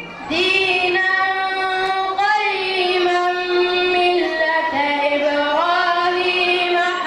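A boy reciting the Quran in melodic tajweed style: one voice drawing out long notes that slide slowly from pitch to pitch, after a brief breath just at the start.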